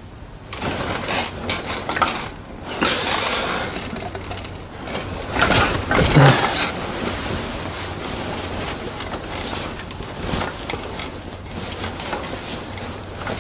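Irregular mechanical clicking and rattling with scraping, like a small geared mechanism being worked by hand.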